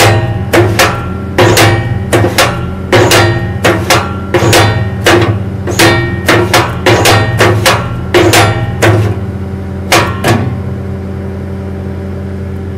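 Repeated ringing metallic clanks, about two or three a second, from a steel skid-steer cement mixer being run on the loader's hydraulics, over the skid steer engine's steady drone. The clanking stops about ten seconds in while the engine keeps running.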